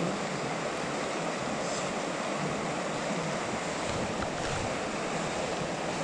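River water rushing steadily over rocks, an even hiss with no breaks.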